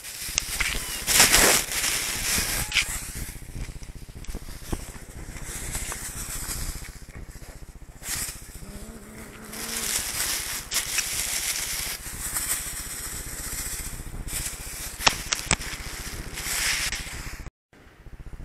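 Dry cat food rattling in a rustling bag and being scattered, with sharp clicks and rustles that swell and fade in repeated bouts.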